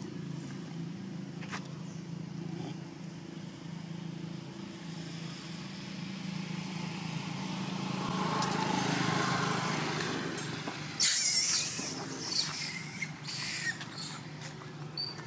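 Steady low hum of a motor vehicle engine, swelling about two-thirds of the way through as if a vehicle passes. Near the end come several loud, sudden scuffs and rustles.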